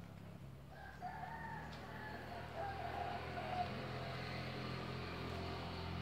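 A rooster crowing once: one long wavering call starting about a second in and lasting about three seconds. A steady low motor hum grows louder underneath it.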